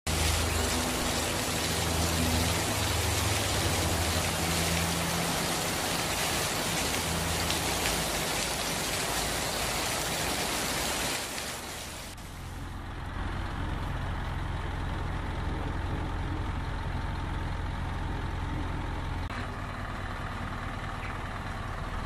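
Isuzu NPR truck's diesel engine idling with a steady low hum. About halfway through the sound steps down and gets quieter, then runs on steadily.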